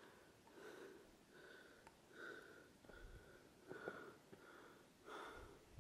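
Near silence: faint background with a few soft, indistinct sounds.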